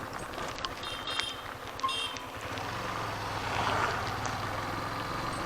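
Motorcycle running along a road, its engine a low steady hum under wind and road noise. Two short, high-pitched chirps come about one and two seconds in.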